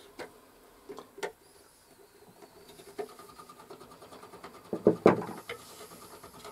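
Pliers clicking and knocking against the metal speed-regulator lever of a clockwork gramophone motor as the lever is bent back slightly, with a louder clatter about five seconds in. A faint, fast, even rattle runs underneath from about halfway.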